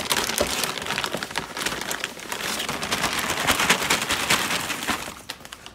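Clear plastic wrapping crinkling and rustling as it is pulled off by hand, a dense run of fine crackles that dies down near the end.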